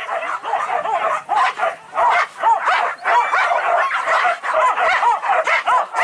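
A pack of hunting dogs barking and yelping at once, in many rapid, overlapping short calls.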